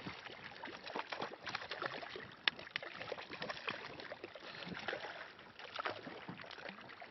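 Irregular small splashes and knocks of water and handling against a small fishing boat as a hooked fish is brought alongside.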